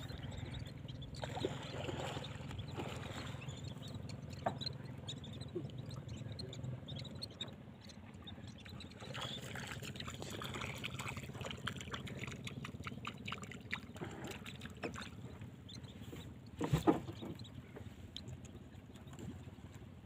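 Water lapping and trickling against the hull of a small wooden boat, with many small splashes and clicks and a low hum that fades out about seven seconds in. A single sharp knock near the end is the loudest sound.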